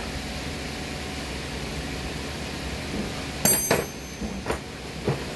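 Steady running noise of a large pedestal fan in a workshop, with a cluster of sharp knocks and clicks about three and a half seconds in and a couple of lighter ones after.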